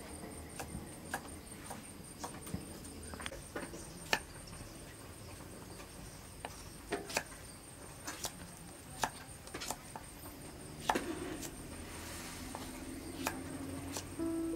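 Kitchen knife slicing cucumber on a thick wooden chopping block: sharp knocks of the blade hitting the wood, irregular, about one or two a second.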